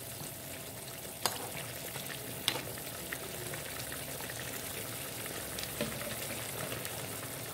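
A pan of sour dried-fish broth (asam rebus) bubbling at a steady simmer while a metal ladle stirs it, clinking against the pan a few times.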